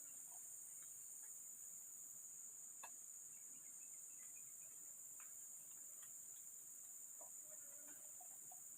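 Steady high-pitched chorus of forest insects, faint throughout, with a few faint clicks and a brief faint call near the end.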